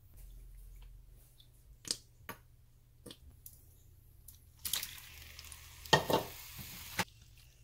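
Raw chicken strips dropped into hot oil in a nonstick frying pan, sizzling for about two seconds, with a few thuds as the pieces land; the sizzle cuts off suddenly. A few light clicks come before it.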